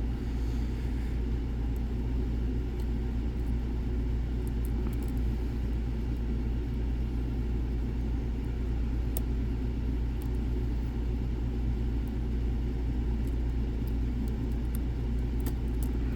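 Steady low background rumble, with a few faint light clicks of a lock pick working the pins of a Dom IX Saturn lock, mostly past the middle and near the end.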